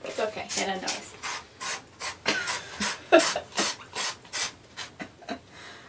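Sphynx cat licking the bathtub wall with its rough tongue: a rapid run of short rasping licks, about three a second, stopping just before the end.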